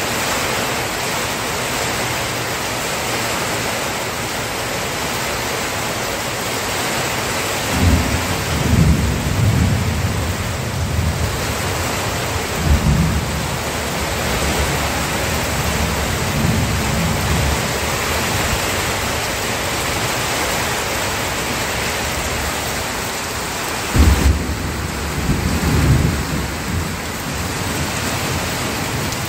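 Steady heavy rain with deep rolls of thunder: rumbles come about eight seconds in, again around thirteen and sixteen seconds, and a sharper, louder crack-and-roll about twenty-four seconds in.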